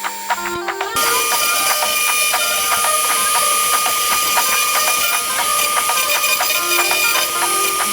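Shapeoko XXL CNC router running, a steady spindle whine over the hiss of the cut, which comes in suddenly about a second in.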